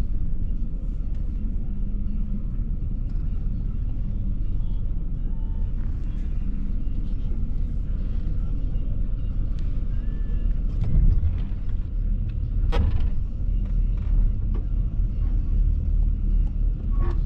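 Low, steady engine rumble heard from inside a pickup truck's cab as a farm tractor works close behind the truck. It swells about eleven seconds in, and a sharp click follows shortly after.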